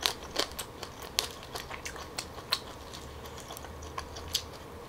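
Steamed tiger prawn shell being peeled by hand close to the mic: irregular sharp clicks and crackles, about three a second.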